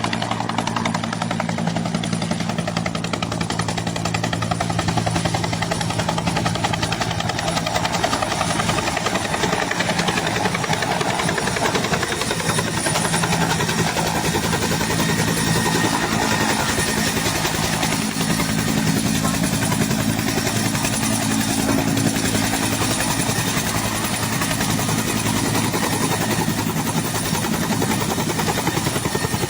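Helicopter running steadily close by: rapid rotor chop over a steady engine hum.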